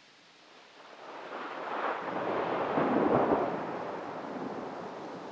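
Thunder rolling: it builds for about two seconds to a peak near the middle, then slowly dies away. It is heard through a doorbell camera's microphone, thin and with little deep bass.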